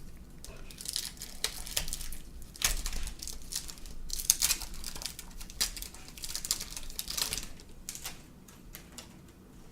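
Glossy baseball cards being handled and flipped through, sliding and flicking against one another. It comes as an irregular run of short papery swishes and snaps that dies down near the end.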